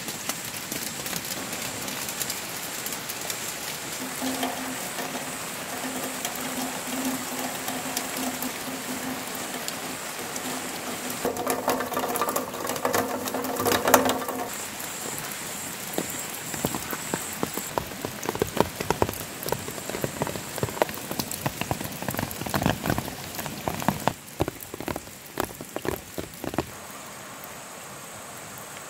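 Steady rain falling on puddles and leaves, a dense patter of drops. A low steady hum with overtones runs from about four seconds in to about fourteen seconds. In the second half, heavier drops splatter more loudly.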